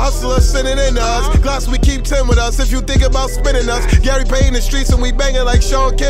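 Hip hop music: rapping over a beat with a deep bass hit about twice a second.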